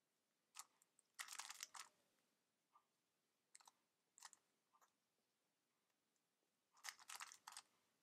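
Faint clicking of a stickerless 3x3 speed cube's plastic layers being turned quickly by hand, in short runs: a rapid cluster of turns about a second in, single turns through the middle, and another rapid cluster near the end.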